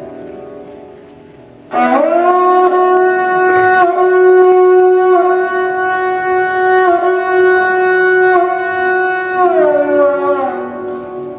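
Sarangi playing a long bowed note: a fading note at first, then about two seconds in it slides up into a loud held pitch, holds it steady, and slides back down near the end.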